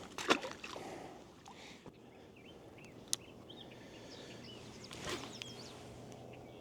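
Faint outdoor ambience with scattered short bird chirps, a sharp click about three seconds in and a brief rustle of handling noise a couple of seconds later.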